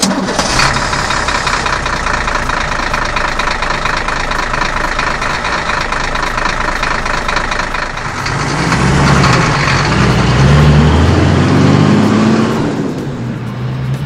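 A motor vehicle engine sound effect that starts abruptly and runs with a fast, even rattle. From about eight seconds in it revs up and down, then eases into a lower, steadier hum near the end.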